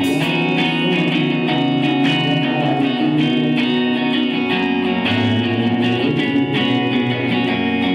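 Electric guitar played live through an amplifier, picking a steady run of chords with no singing.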